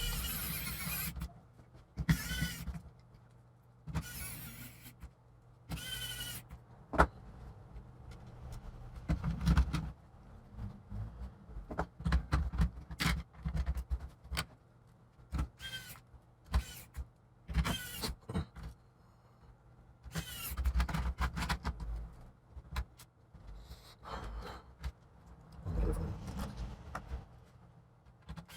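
Plastic case parts of a Lenovo G50-70 laptop being handled and pressed together during reassembly: irregular clicks, creaks and short squeaks of plastic.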